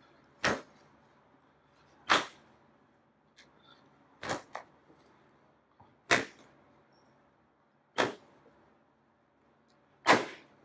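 Wet clay slapped down hard onto a wooden workbench, about every two seconds, six times with one double slap, as the clay is pressed flat into a slab.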